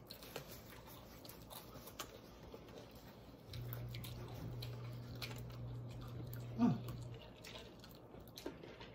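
Close-miked eating of chicken wings: chewing, lip smacking and finger licking as small scattered clicks. A low steady hum comes in about three and a half seconds in and lasts some four seconds, with a short falling vocal sound near its end.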